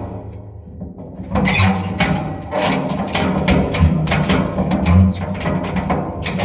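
Background music with plucked guitar over a bass line and a sharp, quick beat.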